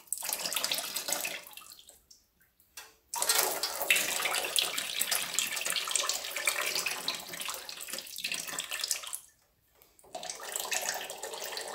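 Automatic transmission fluid running and splashing out of a Corvette C3's open transmission as the filter is pulled from the valve body. It stops briefly twice.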